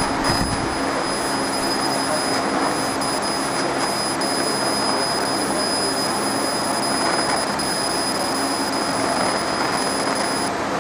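CO2 laser marking machine running while it engraves text into a wood sheet: a steady rushing noise with a thin, high, steady whine over it. The whine cuts off near the end, when the marking finishes.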